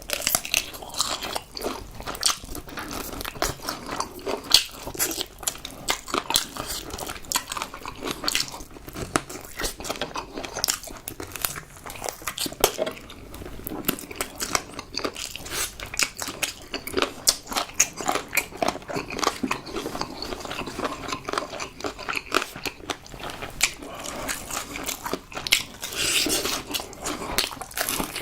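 Crispy fried chicken being bitten and chewed close to the microphone: a steady run of crunchy bites and crackling chews.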